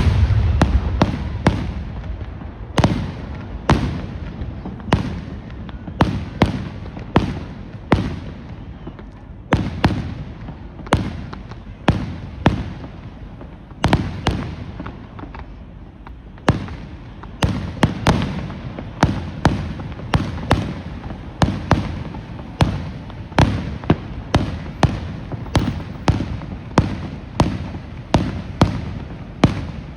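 Fireworks going off: a heavy boom right at the start, then a long string of sharp bangs, about one or two a second, each dying away briefly.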